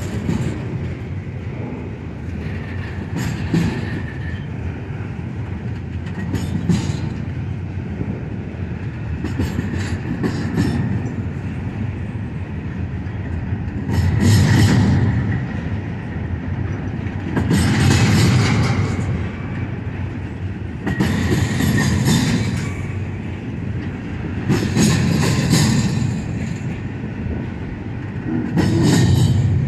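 A double-stack container freight train's well cars rolling past on the rails, with a steady low rumble and wheel clatter. The clatter swells louder every few seconds as each set of wheels passes, more strongly in the second half.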